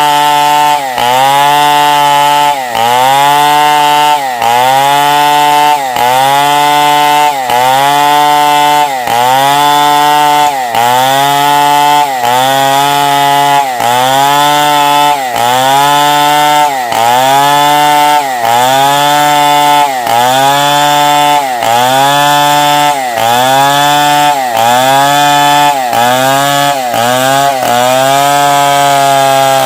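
Stihl 070 two-stroke chainsaw cutting lengthwise through a timber log under load. The engine note dips and recovers in a steady rhythm, about three times every four seconds, as the bar is worked into the cut, then settles to a steadier, lower note near the end.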